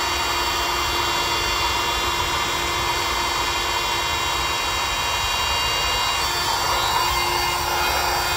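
Electric air pump running steadily with a constant whine, inflating the thwart (cross tube) of an inflatable kayak until it is full.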